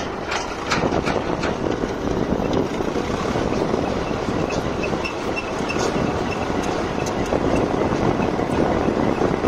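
Tractor engine running steadily under load while it drives a hydraulic earth auger boring a hole in dry soil. There are a few sharp knocks in the first second or so.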